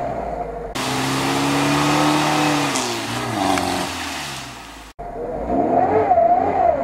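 Lada Niva's engine revving up and down under load as it pushes through a deep, water-filled mud rut. A loud hiss comes in abruptly about a second in and drops out with a sharp break just before five seconds, after which the engine revs on.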